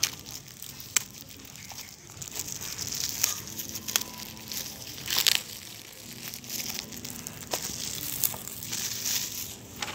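Plastic wrapping on a comic book crinkling and crackling as hands turn and handle it, with a few sharp clicks.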